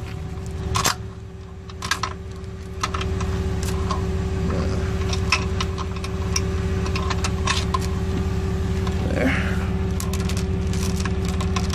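Tow truck engine idling steadily, with scattered metallic clinks and rattles of a steel chain being hooked onto the wheel-lift claw.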